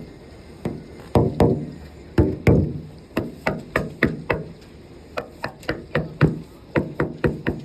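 A rapid, irregular series of sharp knocks and taps, about three a second, some with a short low ring after them.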